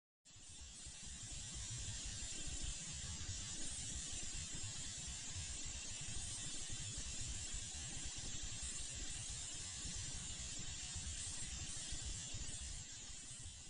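Spacecraft radio emission recording made audible, presented as coming from Saturn's moon Rhea: a steady hiss with a fast crackling flutter underneath. It fades in over the first couple of seconds and tapers off near the end.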